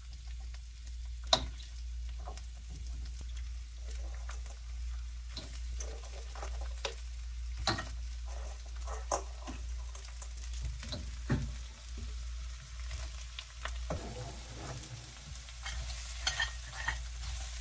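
Blue crabs, onions and peppers frying in hot oil in a wok: a steady sizzle, broken by scattered sharp knocks and clatters as the crabs are tossed in and stirred, the loudest about a second in.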